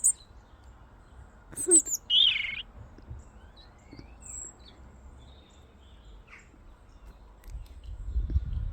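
A small bird calling: a few short, high chirps and sweeping notes in the first few seconds, then fainter, softer calls. A low rumble comes in near the end.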